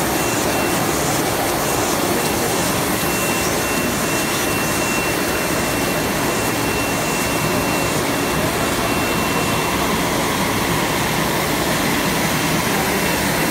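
Small cigarette-making machine running at speed: a steady, dense mechanical whirring with a thin, steady high whine held throughout.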